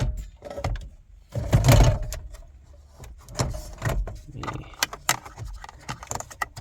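Plastic clicks and rattles from handling a car's dashboard stereo and climate-control unit and its wiring connectors, with a louder knock and rustle about a second and a half in.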